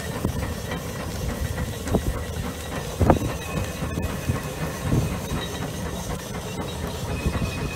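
Case 150 steam traction engine working under heavy load pulling a gang plow: a steady hiss of steam and exhaust, with a few sharp louder exhaust beats, the strongest about three seconds in.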